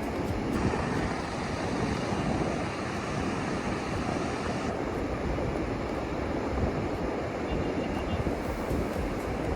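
Ocean surf breaking steadily on a sandy beach, with wind rushing on the microphone.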